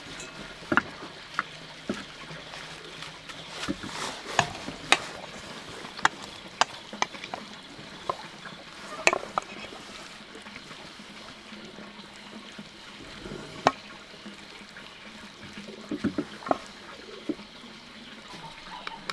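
Tableware clinking during a meal: irregular light taps and clinks of chopsticks against bowls and plates, a dozen or more scattered over the stretch, some with a short ring.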